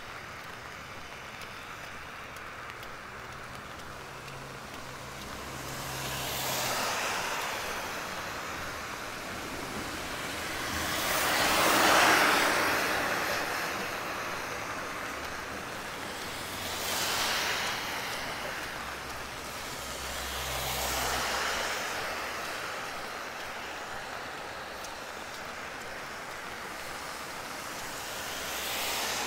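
Cars passing one after another on a rain-wet street, each a tyre hiss that swells and fades, about five in all, the loudest about twelve seconds in. A steady hiss of rain lies underneath.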